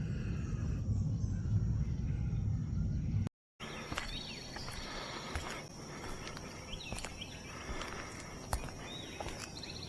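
Wind rumbling on the microphone, then after a cut a quieter outdoor background: a few short bird chirps over a steady high insect drone, with scattered light clicks.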